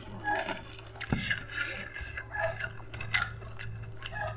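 A person chewing food close to the microphone: irregular crunching and wet smacking bites, over a low steady hum.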